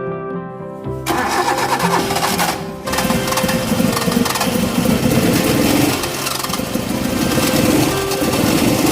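Custom Toyota Corolla engine with a Suzuki Shogun motorcycle CDI ignition, started about a second in and then running loudly, with a brief break near three seconds. Background music plays throughout.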